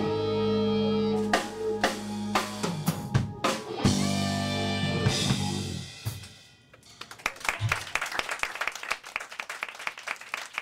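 Live band of electric guitars, piano and drum kit holding a long chord punctuated by drum hits, which fades out about six seconds in. A scattering of quick sharp hits follows for the last few seconds.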